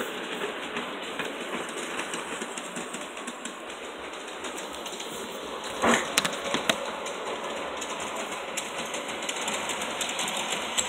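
LGB G-scale model steam locomotive running on its track: a steady motor-and-wheel hum with light clicking as the wheels pass the rail joints. A sharp knock about six seconds in.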